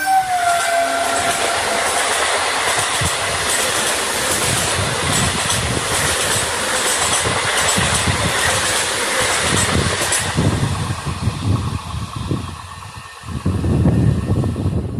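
Indian Railways train passing close by: a loud, steady rush of wheel and rail noise with clattering. The tail of its horn dips in pitch just as it begins. The noise eases after about ten seconds, with a brief lull and one more surge near the end.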